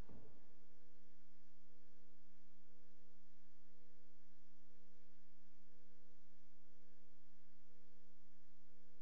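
A steady low hum made of several held tones, with a higher tone beeping on and off about once a second. There is one brief dull thump right at the start.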